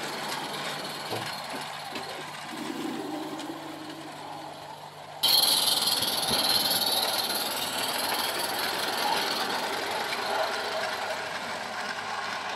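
Small live-steam garden-railway locomotive running with its train of coaches on the rails, a steady hiss and running noise. About five seconds in it jumps suddenly louder, with a bright steam hiss, as it passes close by, then slowly fades.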